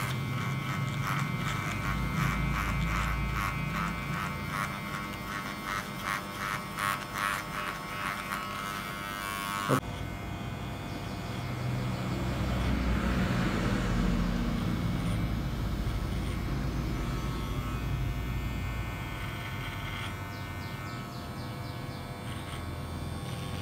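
Electric hair clippers buzzing steadily as they cut short hair for a fade, with a single sharp click about ten seconds in.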